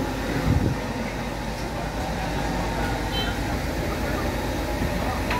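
Cabin noise inside an electric minibus on the move: a steady rumble of the road and tyres through the body, with a knock about half a second in. There is no engine note, only the ride noise.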